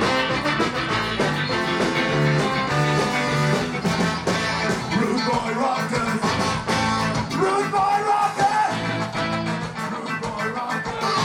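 Live ska band playing a song, with electric guitar over steady drums and bass.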